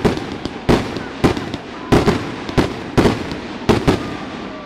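Aerial fireworks bursting in quick succession: about seven sharp bangs, roughly two a second, with crackling between them. A faint thin whistle sounds near the end.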